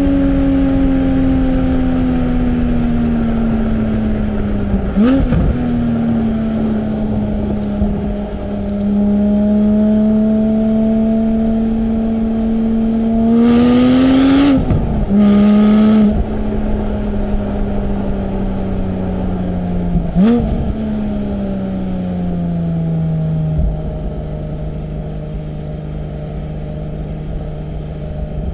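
2020 Porsche 718 Spyder's naturally aspirated 4.0-litre flat-six with sports exhaust, running under light load with the revs slowly falling. There is a short rev blip about five seconds in and another about twenty seconds in. In the middle comes a brief burst of hard acceleration with a loud raspy exhaust, broken by a gear change, and near the end the engine settles to a lower steady note.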